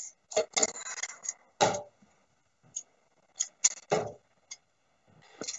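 Darts striking a Winmau Blade bristle dartboard, a series of short sharp knocks spread over a few seconds, with a few fainter clicks between them.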